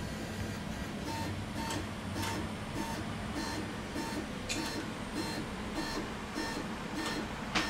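Hi-Fi JET Pro II wide-format inkjet printer printing: the print-head carriage shuttles back and forth, giving a short whine about twice a second over a steady low hum.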